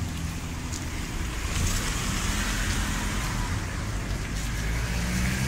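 Street traffic: a low steady rumble, with a passing car's tyre and engine noise swelling about a second and a half in and fading near the end.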